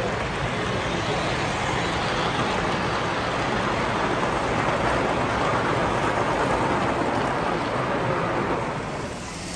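Model train running along the layout track, a steady rolling noise that builds through the middle and drops off near the end.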